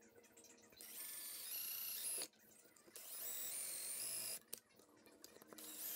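Cordless drill boring through an aluminium angle bracket in two bursts of about a second and a half each, the motor's whine rising in pitch as it speeds up.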